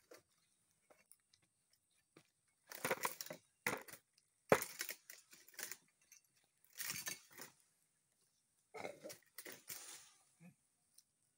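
A long-poled harvesting sickle pulled down through the stalks of oil palm fronds in the crown of the tree. It makes about five short, irregular cutting-and-tearing strokes, each well under a second to about a second long, mixed with the rustle of the fronds.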